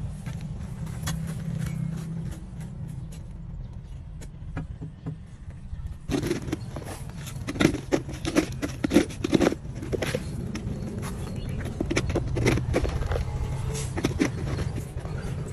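Hand digging in gravelly soil: a hoe scraping, and dirt and stones knocking and clattering as a plastic pipe is pushed into a shallow trench. The knocks grow busier from about six seconds in, over a steady low rumble.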